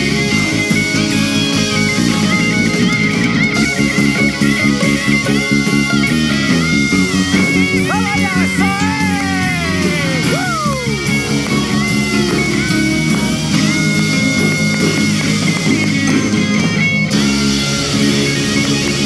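Live band playing upbeat rock-style instrumental music: electric guitar out front over keyboard and drum kit. About halfway through, a run of bent guitar notes slides down in pitch.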